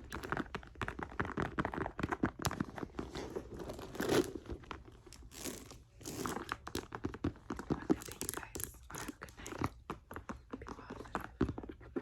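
Rapid, irregular tapping and handling on a leather handbag, many sharp taps in quick succession with a brief lull about halfway through.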